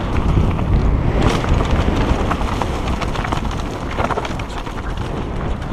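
Evil Undead downhill mountain bike descending a dirt trail at speed: a loud steady rush of wind and tyre rumble, with irregular rattling clicks and knocks from the bike over bumps.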